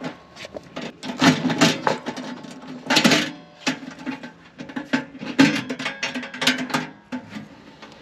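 A key working a padlock on a sheet-metal electrical outlet box, then the padlock and hinged metal lid rattling as the box is opened: a run of irregular metallic clicks and clanks, loudest about three seconds in.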